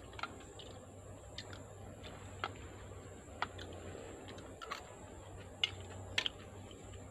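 Scattered small clicks and taps of balut (boiled duck egg) shells being cracked and picked off by hand, with a spoon knocking against a bowl, about seven sharp clicks at irregular intervals.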